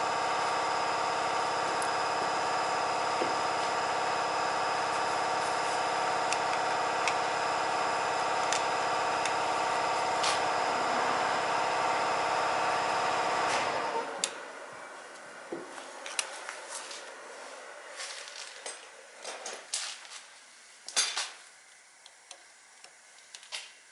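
Subaru Sambar truck engine running steadily, then switched off about fourteen seconds in; scattered light clicks and knocks follow over a faint hiss.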